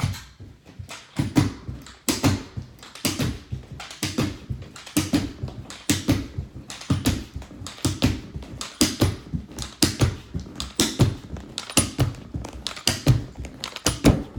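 Carpet knee kicker being struck again and again, about once a second, each strike a dull thud with a scrape of carpet as it is stretched and hooked onto the tack strip along the wall.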